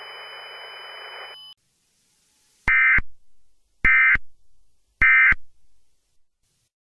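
Three short bursts of Emergency Alert System data tones, about a second apart: the EAS end-of-message (EOM) signal marking the end of the alert. Before them comes about a second and a half of radio hiss that cuts off.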